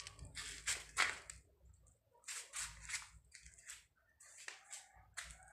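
Short, dry scraping and rustling strokes in three clusters of a few strokes each, about two seconds apart, the loudest about a second in.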